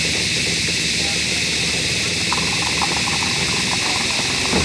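A boat engine idling with a steady low hum, under a constant high hiss.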